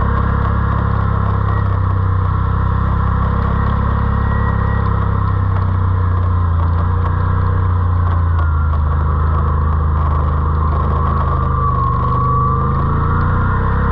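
ATV engine running steadily while riding, with a faint high whine that drifts slightly up and down in pitch.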